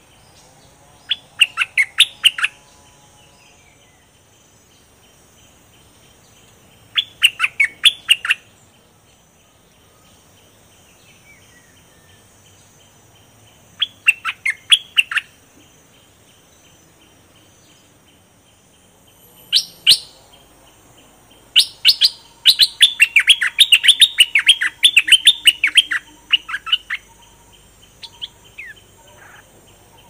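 Caged bulbul singing in short bursts of rapid, sharp, bubbly notes, five phrases spaced several seconds apart, the last and longest running about five seconds. A steady high insect drone continues behind it.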